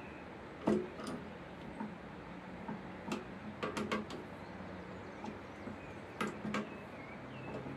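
Scattered light clicks and taps from a bench drill's chuck as it is handled and turned by hand to close its jaws on a 1 mm drill bit; the sharpest click comes just under a second in.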